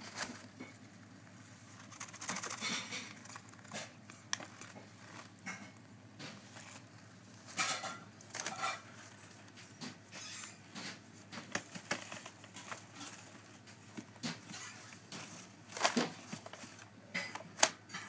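African grey parrot chicks shuffling and flapping their wings on newspaper and tissue bedding in a plastic box. The paper rustles and scratches in irregular short bursts, with quieter gaps between them.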